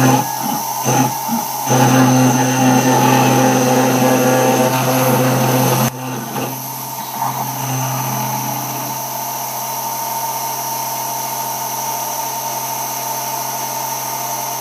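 CNC router's small rotary-tool spindle engraving into an acrylic sheet: a steady motor hum and whine. It comes in short surges at first, is louder for a few seconds, drops suddenly about six seconds in, then runs evenly.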